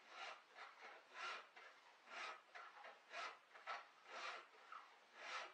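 Hand file rasping across the cutters of a worn chainsaw chain, sharpening it: a series of faint strokes, about one a second with lighter ones between.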